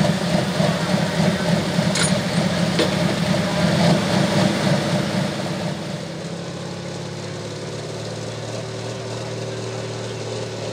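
Diesel pulling tractor's engine running loud and rough, then easing off about halfway through to a lower, steadier run with a clear engine note.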